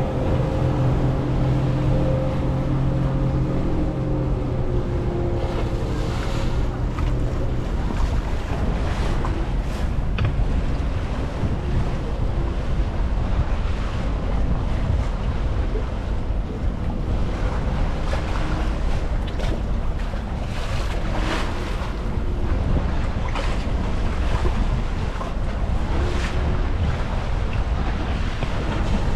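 Wind buffeting the microphone and choppy water splashing around a small boat under way on open water, over a steady low rumble, with repeated sudden gusts.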